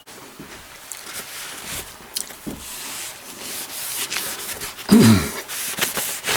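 A steel file draw filing a flintlock rifle's barrel, rasping back and forth in irregular strokes to take waviness out of the metal. About five seconds in comes a short, louder, low-pitched sound.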